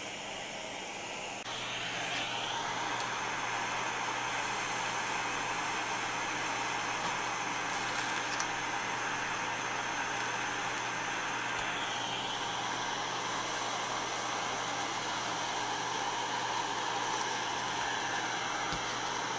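Butane soldering iron hissing steadily while a wire is soldered onto a brushed motor's terminal tab. About one and a half seconds in, the hiss grows louder and a low steady hum comes in underneath.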